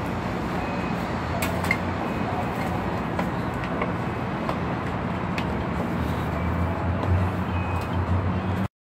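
Steady background noise with a low hum and a few scattered clicks, cutting off abruptly near the end.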